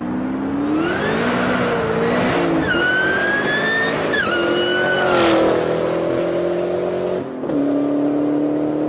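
A car engine revving hard with its tyres squealing, as in a burnout or drift. The squeal rises and falls in pitch and stops about five seconds in. The engine dips briefly near seven seconds, then holds a steady high drone.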